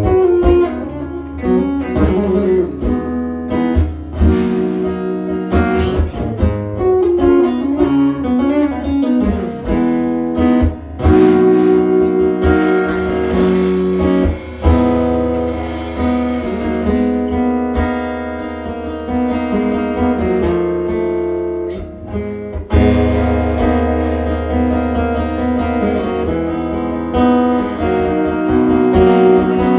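Guitar jam: an instrumental groove of strummed chords and picked notes, played continuously.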